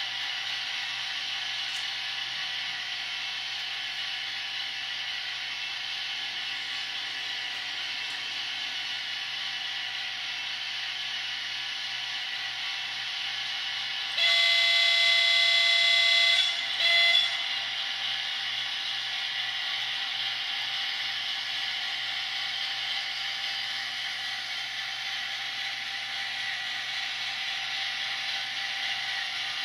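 Sound-equipped model of a WDG-4 diesel locomotive, its recorded engine sound running steadily. About halfway through, the locomotive horn sounds for about two seconds, followed by a short second toot.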